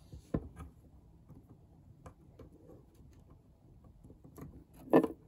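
Scattered light clicks and taps from hands handling small plastic toy pieces and clear putty close to the microphone, with a louder knock near the end.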